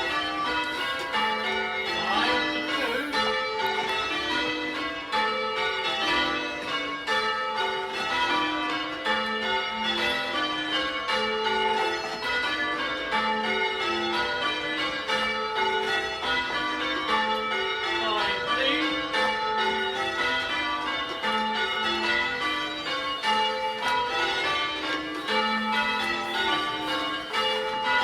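Church bells rung in changes by a band of ringers: rows of single bell strokes, one after another, stepping down through the bells and repeating in an even rhythm.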